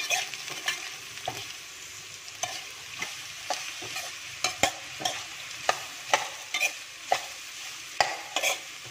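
Metal spoon stirring a dry mix of chopped jackfruit and grated coconut in a pan, scraping and clicking against the pan about once or twice a second, over a steady low sizzle from the hot coconut oil.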